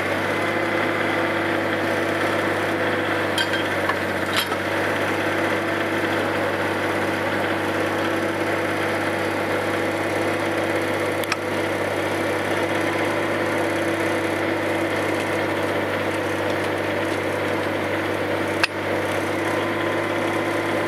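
An engine running steadily at an even speed, a constant hum with no revving. A few sharp knocks sound over it, the loudest near the end.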